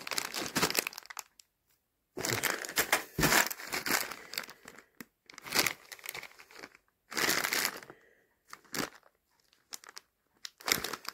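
Clear plastic bag packed with plastic miniatures crinkling as it is squeezed and turned in the hand, in several bursts with short pauses between them.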